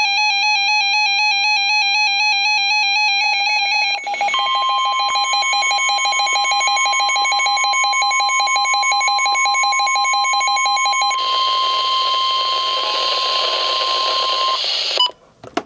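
A weather radio receiver sounds its pulsing, warbling electronic alert. About four seconds in, the single steady 1050 Hz NOAA Weather Radio warning alarm tone starts and runs for about ten seconds, the signal that a warning such as this severe thunderstorm warning is about to be read. The receiver's alert stops about eleven seconds in, and the tone carries on over radio hiss before cutting off.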